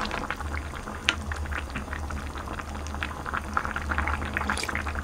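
Tuna kimchi stew bubbling in a pot, a dense, irregular run of small pops and crackles over a steady low hum.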